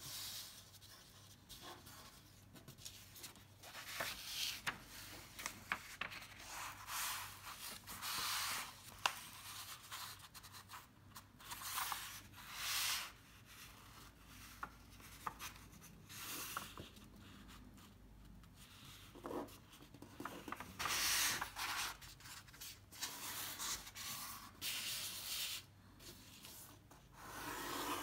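A sheet of paper being folded by hand, with fingers sliding and pressing along the creases. It comes as a string of dry rubbing and rustling strokes, each a second or two long, with small crackles and short pauses between them.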